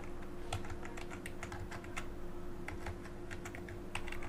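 Computer keyboard keys clicking in an irregular run of keystrokes as digits are typed, over a faint steady hum.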